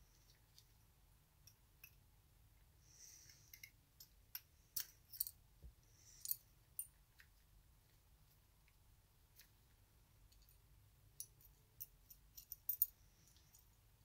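Small steel parts of a Colt 1908 vest pocket pistol clicking and scraping as the frame is handled and worked on in gloved hands. The sharp light clicks come in two clusters, one in the first half and one near the end.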